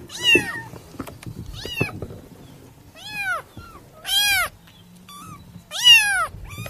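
Kitten meowing repeatedly: about five short, high-pitched meows, each rising and then falling in pitch, roughly a second or so apart.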